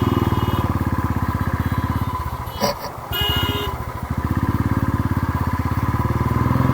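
Royal Enfield Thunderbird 350's single-cylinder engine running with a fast, even thump, dipping briefly a little over two seconds in, with a sharp click near the middle.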